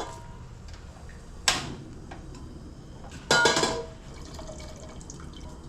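Cooking oil poured into a pan in two short pours, the second with a ringing clink, over a steady low hum.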